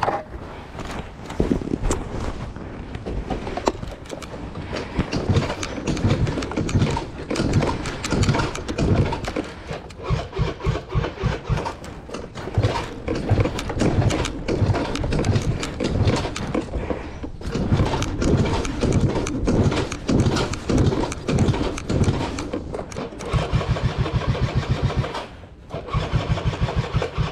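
Yamaha JOG Aprio Type II scooter's small two-stroke engine being cranked again and again by its electric starter, in repeated bursts with a short break near the end. This is hard starting that a larger battery has not cured.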